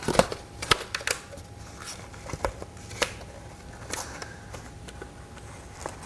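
Handling noise from gloved hands on a plastic hard hat and a dust mask: scattered clicks, taps and rustles, the loudest few in the first second.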